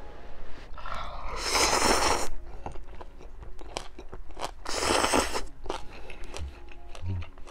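A man slurping ramyeon noodles, two long loud slurps about a second and a half in and again about five seconds in, with chewing and small mouth clicks between them.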